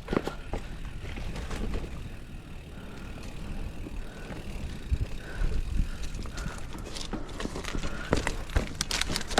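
Mountain bike riding over a dirt trail: tyres rolling and the bike rattling, with irregular knocks and clatters over bumps, thicker near the start and the end.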